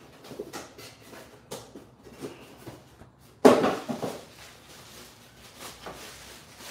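Plastic bubble-wrap packaging crinkling and rustling in the hands, with one sudden louder rustle about three and a half seconds in.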